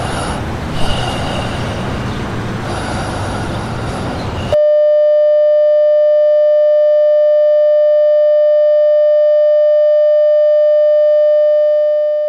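A loud rushing noise cuts off abruptly about four and a half seconds in. It is replaced by a steady single-pitch broadcast test tone, held unchanged and fading out near the end.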